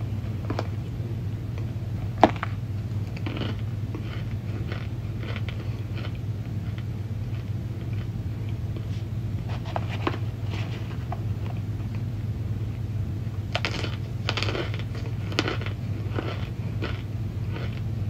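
Chunks of packed cornstarch crunching and crackling in short, scattered bursts, with a sharp click about two seconds in and a busier run of crunches near the end, over a steady low hum.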